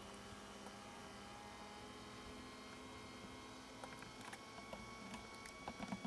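Electric linear actuator of a Droptail power tailgate lift running with a faint, steady hum as it raises the pickup's tailgate towards closed. A few light clicks come in the second half.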